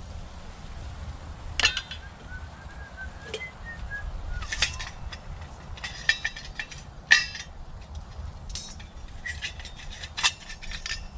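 Metal clinks and clanks of a twig stove's parts and a metal pot being handled and set together, a dozen or so sharp knocks at uneven intervals, some with a brief metallic ring.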